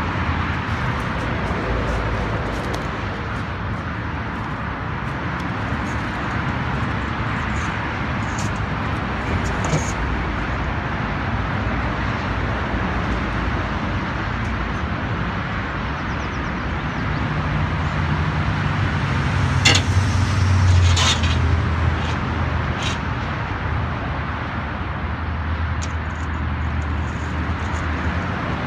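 Steady town road-traffic noise, with a low vehicle rumble swelling about two-thirds of the way through and a few sharp knocks around the same time.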